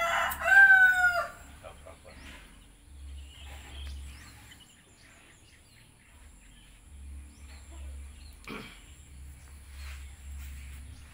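A rooster crowing once, loud, at the very start: a call about a second and a half long with a held note that falls away at the end. After it there is only a faint low rumble and a single knock later on.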